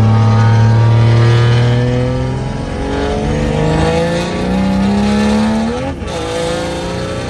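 Built 1,100 hp Cummins diesel in a Dodge Ram pulling hard under acceleration, heard from inside the cab: its note holds steady, then climbs, breaks briefly about six seconds in at a gear change, and settles into a steadier note.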